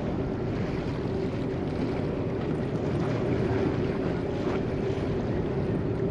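A 1999 Carver 504 motor yacht's engines running at idle while the boat creeps ahead: a steady hum over a low rumble.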